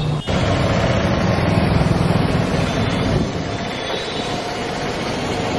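Steady outdoor street noise with a low rumble, changing abruptly about a quarter second in and again about three seconds in.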